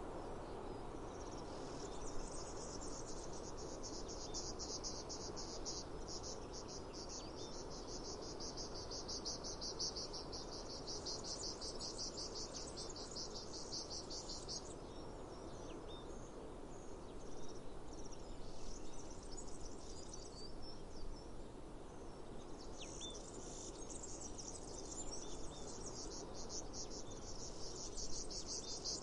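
Cicada song: a fast, even, pulsing buzz that runs for about thirteen seconds, breaks off for several seconds, then starts again near the end, over a soft steady outdoor background with a few short bird chirps in the gap.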